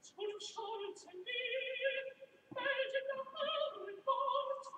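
Music with an opera-style singer holding long, wavering notes one after another.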